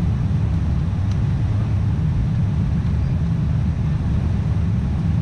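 Cabin noise of a four-engined Boeing 747 climbing out after takeoff, heard at a window seat over the wing: engines at climb power and rushing air make a steady, even, deep rumble.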